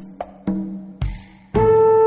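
Background music: a run of short notes that each die away, then a loud held note comes in about three quarters of the way through.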